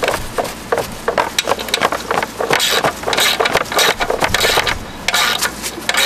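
Irregular rapid clicking and metal-on-metal scraping of a wrench working a bolt on the steel front of a Toro T-bar walk-behind mower, fitting a sulky mount. Louder scraping rasps come about halfway through and again near the end.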